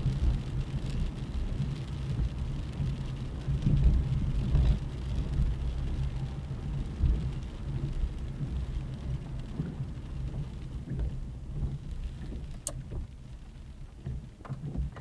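A car driving on a rain-wet road, heard from inside the cabin: a steady engine hum and tyre and road noise, with rain. The noise dies down over the last few seconds as the car slows and stops. There is a single sharp click about two-thirds of the way through.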